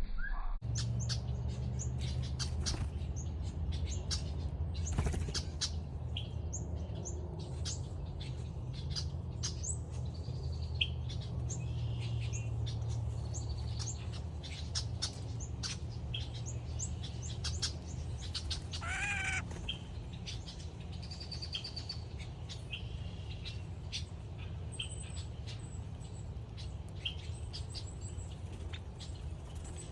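Wild birds chirping and calling over a steady low rumble, with many short sharp clicks throughout; one longer, wavering call stands out a little past the middle.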